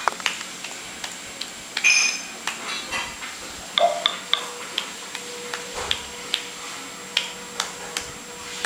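An elderly woman clapping her hands slowly and unevenly, about two claps a second. A brief high ringing sound about two seconds in is the loudest moment.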